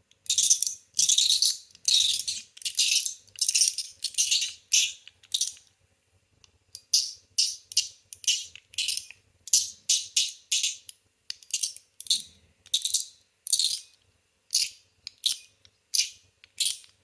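CHENYU SYNTONY metal fidget toy being clicked and snapped over and over in the hand, giving loud, bright, rattly clacks. The first few seconds hold slower, longer rattling clacks, about one every two-thirds of a second; after that come shorter, quicker clicks of roughly two a second.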